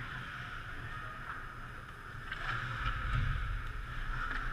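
Ice rink sound during hockey play: a steady hiss of skates on ice with a few sharp clicks, and a low rumble that swells about halfway through.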